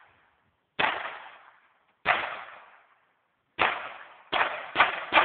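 Ruger handgun firing six shots, each trailing off in an echo: three spaced about a second and a half apart, then three quicker ones near the end.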